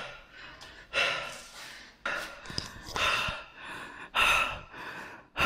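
A man breathing hard, with sharp gasping breaths in and out about once a second: out of breath and shaken after running.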